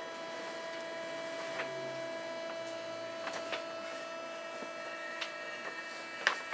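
Tokyo Metro 8000 series subway car's electrical equipment under the floor, giving a steady hum and whine of several tones with a few light clicks and ticks.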